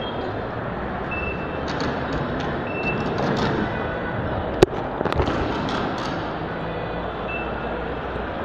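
Busy shopping-mall ambience: a steady wash of crowd and hall noise, with a short high beep recurring every second or so. A sharp click a little past halfway is the loudest sound, followed by a few lighter clicks.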